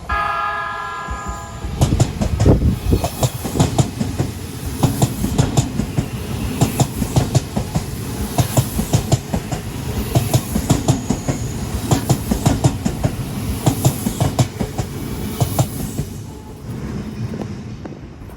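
An Odakyu Line electric train sounds its horn briefly, then passes close by with a rapid, steady clatter of wheels over rail joints. The clatter eases a couple of seconds before the end.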